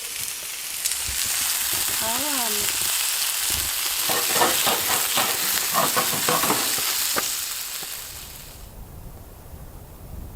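Food sizzling and frying in a hot pan, with a utensil clicking and scraping against the pan in the middle stretch; the sizzle fades away near the end.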